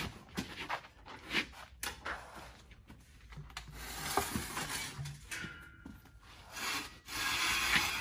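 Rubber tire rubbing and scraping against the steel arms of a tire spreader as it is set on and worked open by hand, with scattered knocks. The loudest scrape comes near the end.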